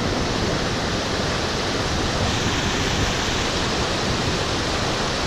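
Stream water rushing, a steady, even rush with no breaks.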